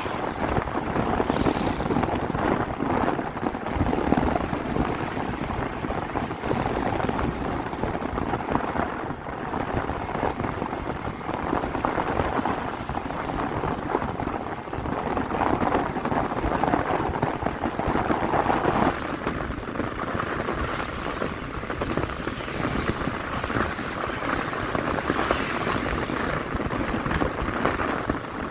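Pickup truck driving on a wet road, heard from inside the cab: a steady rush of tyre and road noise with rain-like spray.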